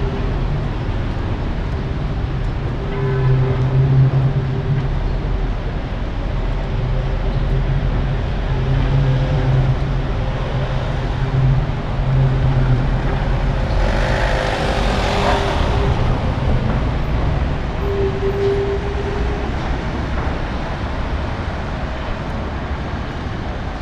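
Wuppertal Schwebebahn suspension-railway car running around the turning loop in the rain, a steady low rumble with a faint hum that comes and goes: the wet rails keep the turn much quieter than usual. Road traffic runs underneath, with one vehicle passing about fourteen seconds in.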